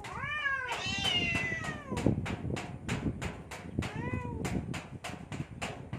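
Cats yowling at each other in a standoff: long wavering caterwauls that rise and fall in pitch, one in the first two seconds and another about four seconds in. A fast, regular ticking runs underneath.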